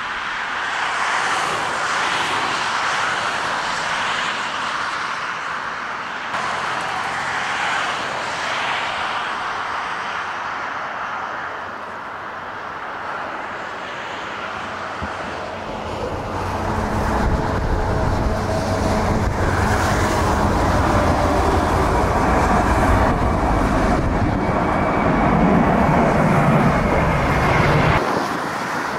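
Airliner engines at close range: first a Dash 8 turboprop climbing away with full power. From about 16 seconds in comes a louder jet rumble with a steady whine over it, which cuts off abruptly near the end.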